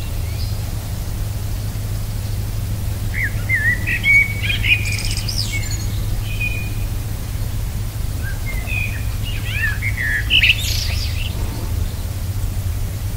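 Birds chirping in two short bouts of quick twittering calls, about three seconds in and again about eight seconds in, over a steady low rumble.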